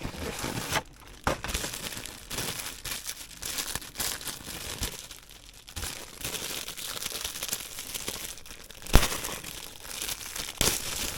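Packaging of a new cabin air filter being unwrapped by hand: irregular crinkling and tearing, with a sharp snap about three-quarters of the way in and another near the end.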